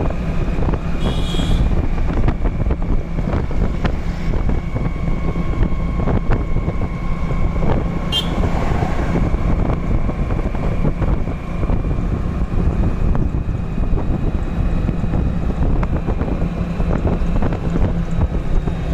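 Hero Honda motorcycle running at high speed, heard from the saddle with heavy wind buffeting on the microphone and a faint steady whine underneath. A single brief click about eight seconds in.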